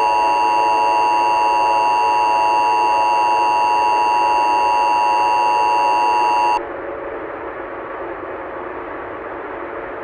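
Emergency Alert System attention signal: two steady tones sounded together, cutting off abruptly about six and a half seconds in. A lower, steady hiss remains after it.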